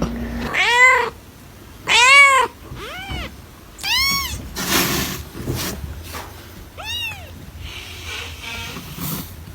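A cat meowing, about five separate calls, each rising and then falling in pitch, the first two the loudest.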